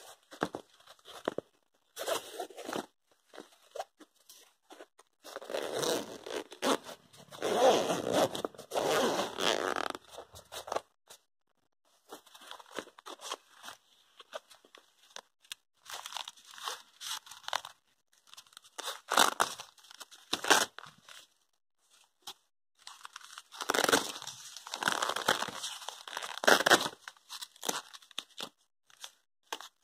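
Hands handling a soft fabric electronics organiser pouch and its Velcro-backed padded dividers: irregular rustling and rasping, tearing sounds in uneven bursts, loudest a third of the way in and again toward the end.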